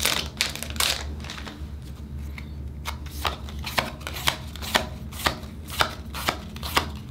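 Digimon trading cards being flipped through one at a time from a just-opened booster pack, each card slid off the front of the stack to the back with a short crisp snap. The snaps are irregular at first, then settle to about three a second.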